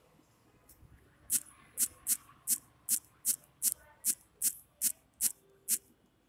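A fingertip tapping repeatedly on a Redmi Note 4's rear fingerprint sensor while a fingerprint is being enrolled: about twelve short, sharp clicks, a little over two a second, starting about a second in.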